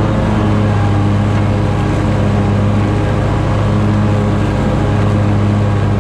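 Scag Tiger Cat zero-turn mower running steadily under load, its engine drone and spinning 61-inch deck blades cutting grass.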